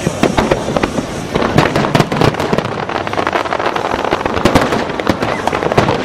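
Large fireworks display: a dense, unbroken barrage of aerial shell bursts and crackling, many sharp bangs a second.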